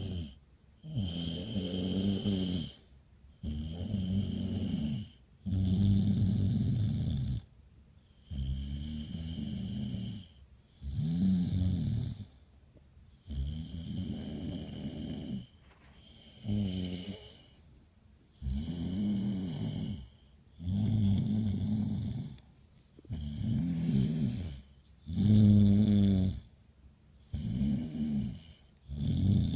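Heavy snoring sound effect: a steady run of loud snores, one about every two seconds. Each snore has a pitch that rises and then falls, with a hiss of breath over it, and short quiet pauses lie between them.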